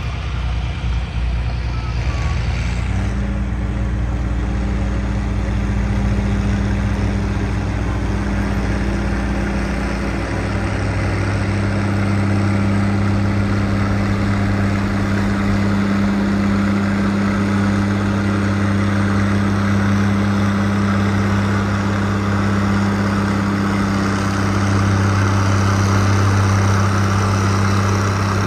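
Heavy vehicle engine running steadily. Its pitch steps up about three seconds in and shifts again around ten seconds, and it grows slightly louder near the end.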